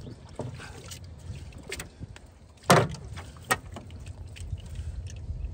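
Wet cast net being shaken out over a sack in an aluminium jon boat: water trickling from the mesh with scattered clicks, and two sharp knocks against the metal hull near the middle, the first the louder.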